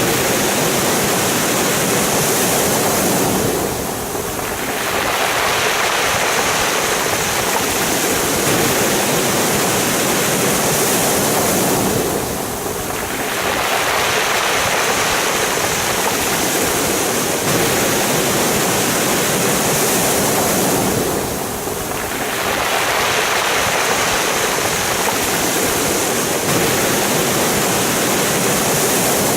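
Sea waves washing up a pebble beach, the surf rushing over the stones in a steady wash that eases briefly about every nine seconds between waves.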